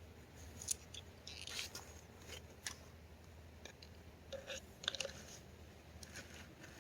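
Faint, irregular rustling, crackling and scraping, a scatter of small clicks with two busier clusters, of the kind made by hands searching through damp ground litter and handling the catch.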